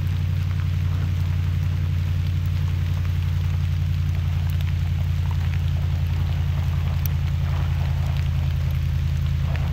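Steady low engine and road drone heard inside a moving vehicle, with faint scattered ticks over it.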